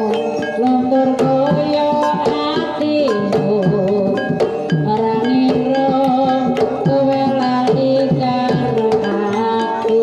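Banyumasan tayub gending on gamelan: a sinden's sung melody with wavering vibrato over struck kettle gongs, hanging gongs, wooden-keyed mallet instruments and kendang drum strokes.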